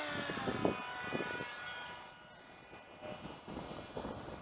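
The 64 mm electric ducted fan of an RC F-18 jet whines on its landing approach, its pitch dipping slightly as the throttle is eased back, and it gets quieter about two seconds in. Wind rumbles on the microphone underneath.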